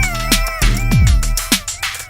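Electronic background music with a heavy beat, falling bass sweeps and a synth melody.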